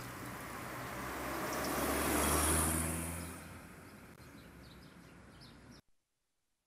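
Street traffic: a motor vehicle passes, its engine hum growing louder to a peak about two and a half seconds in and then fading, with faint bird chirps after it. The sound cuts off abruptly near the end.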